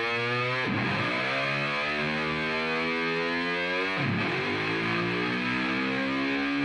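Background music: sustained electric guitar chords that change about a second in and again near the middle.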